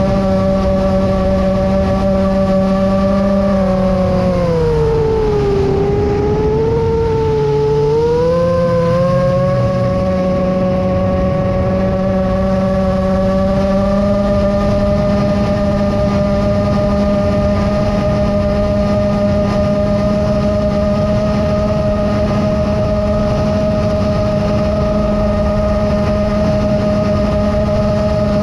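Brushless motors and propellers of a 7-inch FPV quadcopter whining steadily over a rush of wind. About four seconds in the pitch drops as the throttle is eased off, then climbs back to a steady whine a few seconds later.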